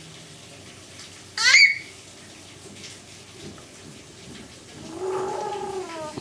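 A baby's sharp, high-pitched rising squeal about a second and a half in, then a longer, softer falling 'ooh'-like coo near the end, over a faint hiss of rain.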